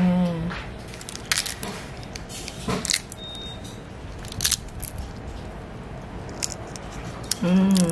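Scattered short, dry crackles and rustles as crinkly pieces of dried tofu skin are handled and dropped onto a bowl of porridge, with pauses between them. A voice speaks briefly at the start and again near the end.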